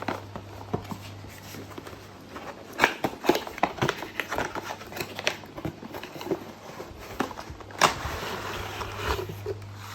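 A multimeter's cardboard box being opened and its contents handled: scattered clicks, taps and rustles of cardboard and packing, with a longer sliding rustle about eight seconds in. A steady low hum sits under it throughout.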